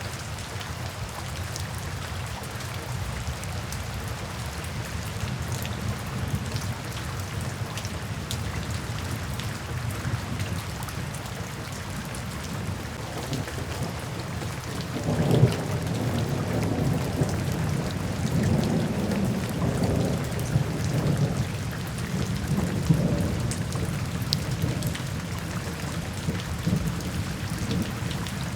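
Steady rain falling into puddles and standing water, with a roll of thunder starting sharply about halfway through and rumbling on with several swells.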